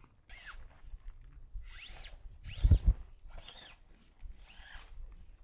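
A zipper being pulled in a series of short strokes, each a quick rasp that rises and falls in pitch, with a heavy thump about two and a half seconds in.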